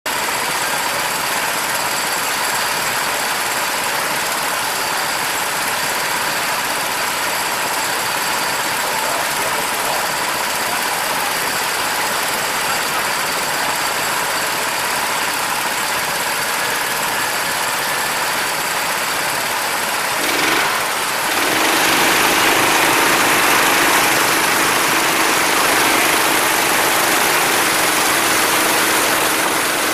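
Go-kart motor running steadily; about twenty seconds in the sound gets louder and a steady low hum joins it.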